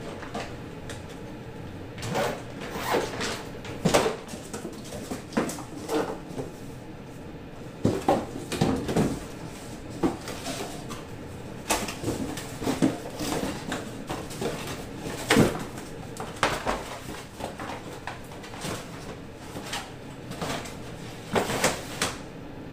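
Handling of recyclables: cardboard milk cartons and empty milk cans being sorted and packed into a woven plastic bag and a cardboard box, with irregular rustling, scraping and light knocks and clinks.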